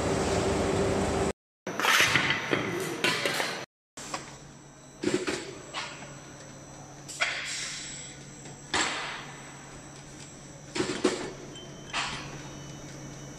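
Automatic aluminium ingot stacking machine at work: a steady motor hum with sharp metal clanks every one to two seconds as ingots are handled and stacked. A steady noise from the casting line is heard first, then a burst of clatter.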